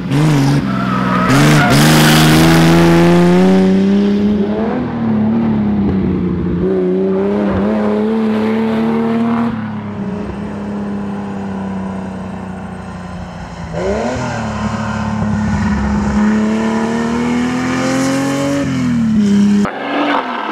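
GMC Jimmy Special rally car's engine running hard, heard from inside the car, its pitch rising and falling with the throttle and gears. A loud rush of noise covers the first few seconds, and near the end a long climb in revs breaks off with a sudden drop.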